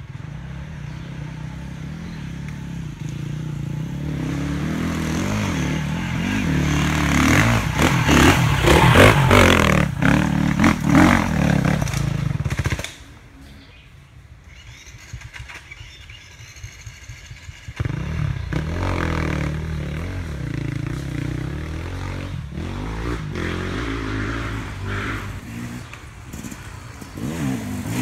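Off-road dirt bike engines revving hard on a rocky enduro trail, growing louder to a peak about ten seconds in and cutting off suddenly just under halfway. After a quieter stretch, another dirt bike's engine comes in about two-thirds of the way through and grows louder toward the end as it approaches.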